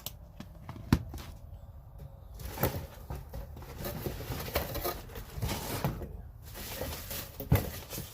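Handling noise from a boxed set of bagged metric bolts, nuts and washers: one sharp click about a second in, then rustling and small knocks as the case and bags are moved.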